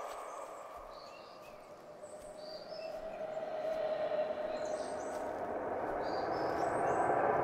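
Forest ambience: scattered short bird chirps over a steady rushing noise that dips early on and then swells again.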